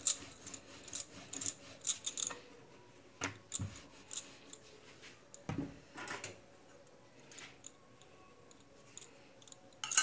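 Wooden rolling pin rolling and clacking on a wooden board as paratha dough is rolled out, with glass bangles clinking on the wrist; a quick run of knocks over the first two seconds, then only a few scattered knocks.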